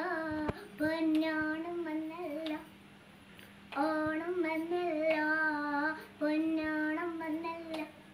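A young girl singing unaccompanied, in phrases of about two seconds with short breaks, the longest pause about three seconds in.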